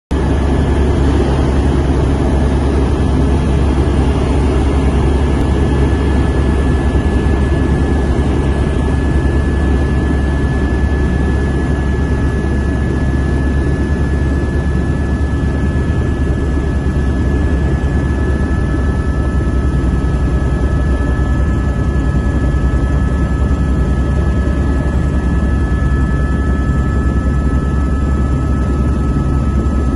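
Helicopter in flight, heard from inside the cabin: a loud, steady deep drone of rotor and engine with a thin, steady whine above it. A second, lower whine joins a little past halfway.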